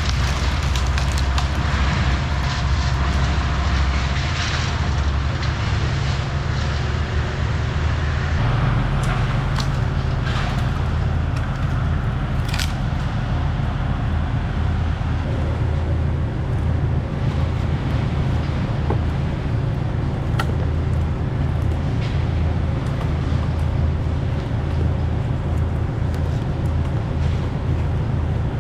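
A motor engine running steadily and loudly, with a few sharp cracks and snaps over it.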